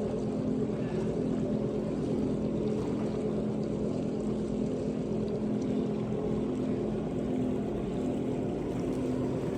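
Motor of an electric gondola running steadily, an even hum made of several steady tones.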